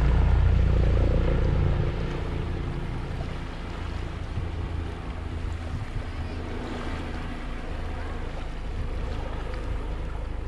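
Helicopter engine and rotor drone, loudest for the first two seconds and then fading away, leaving wind and small waves lapping.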